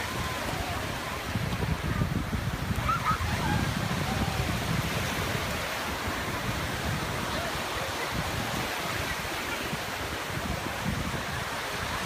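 Small waves breaking and washing over shallow sand in a steady surf wash, with wind buffeting the microphone.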